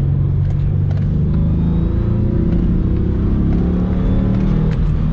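2003 Ford Mustang's engine accelerating on the road, its pitch climbing steadily for about three seconds, then dropping back near the end as the revs fall.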